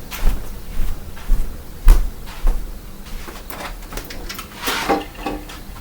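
A door being opened: a series of clicks and knocks, the loudest about two seconds in, then a longer rustling sound near the end.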